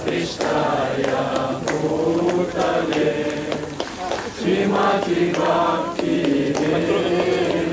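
A group of voices chanting mantras together in a sung, droning unison, holding each note for a second or so before moving to the next.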